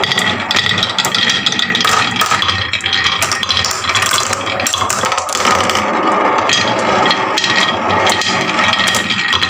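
Many marbles rolling and clacking down a wooden HABA marble run slope, a dense, continuous rattle of rapid clicks and knocks.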